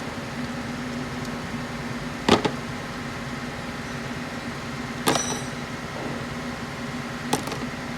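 Three sharp metallic clinks, spaced two to three seconds apart, from tools or engine parts being handled during an engine teardown, the middle one briefly ringing. A steady hum runs underneath.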